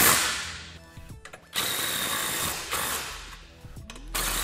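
Cordless impact driver running in two short bursts, about a second each, tightening bolts: the first about a second and a half in, the second near the end.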